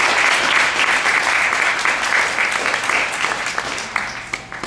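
An audience applauding a speaker at the end of a talk, many hands clapping together; the clapping thins out and dies away near the end.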